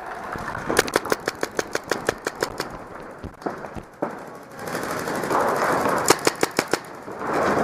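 Paintball markers firing quick strings of shots, about eight a second: a run of about two seconds, a few scattered shots, then another short burst near the end.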